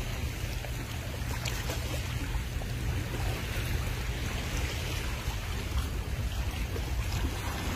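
Steady rush of sea water and wind, with a low rumble of wind on the phone's microphone.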